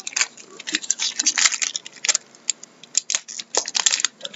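2013-14 Upper Deck hockey trading cards being handled and flicked through, the cards sliding and snapping against one another in a run of quick, irregular clicks and soft rustles.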